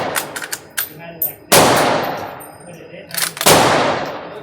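Two rifle shots about two seconds apart, each a sharp crack with a long fading tail, with a few light clicks in between.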